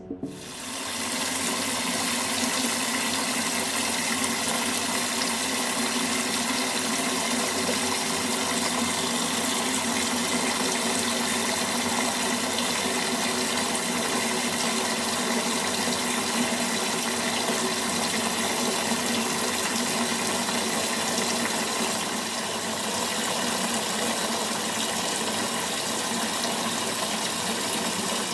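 Steady rushing of running water, holding constant throughout, dipping slightly about two-thirds of the way in.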